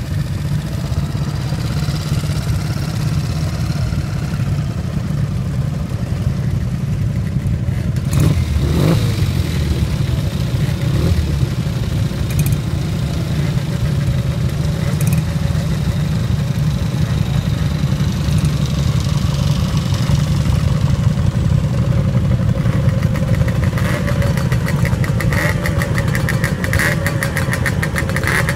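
Several motorcycle engines idling together in a queue, a steady low running sound. In the last few seconds one engine's rapid, even firing pulses stand out close by.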